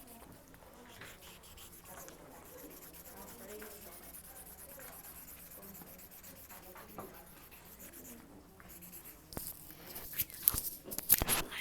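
Faint, muffled background talking with rubbing and rustling close to the microphone, then several sharp clicks or knocks near the end.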